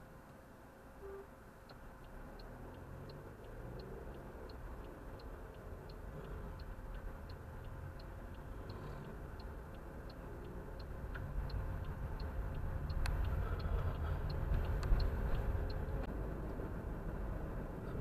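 A car's turn-signal indicator ticking about one and a half times a second, heard inside the cabin, as the car pulls away from a stop and turns. Engine and road rumble rises steadily as it accelerates, and the ticking stops near the end after a couple of sharp clicks.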